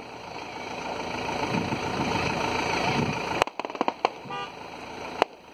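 Fireworks going off: a steady rushing noise that grows louder for about three seconds and then cuts off abruptly. A quick run of sharp crackling pops follows, then a single louder crack near the end.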